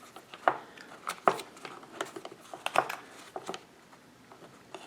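Irregular light clicks and rustles of hands handling wires and small plastic parts of a mini lathe's speed controller box.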